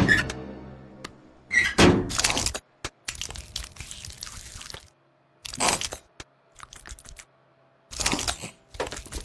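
Cartoon sound effects of a robot's metal chest door and the rummaging inside it: a series of separate clunks and crunches with fainter rustling between them.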